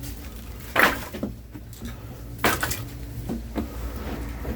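Oak firewood logs knocking as they are set down one at a time while being counted: two louder wooden knocks about a second in and midway, then a few lighter ones.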